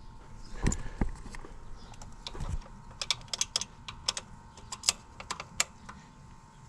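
Ratchet with a 10 mm socket loosening the EGR valve bolts, clicking in quick irregular runs, with a few low knocks of the tool against the engine in the first couple of seconds.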